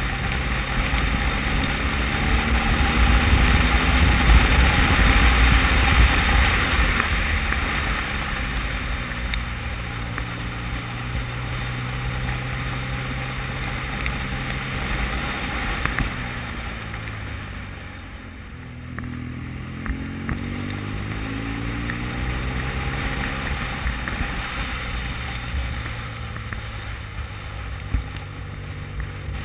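Motorcycle engine running under way, with heavy wind rush on the microphone that is loudest in the first few seconds. About two-thirds through, the engine note sinks and quietens as the throttle is rolled off, then climbs again.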